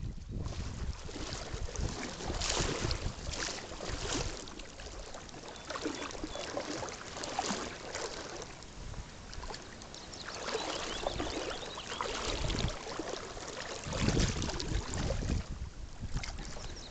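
Shallow river water rippling and splashing, in uneven surges, with gusts of wind rumbling on the microphone.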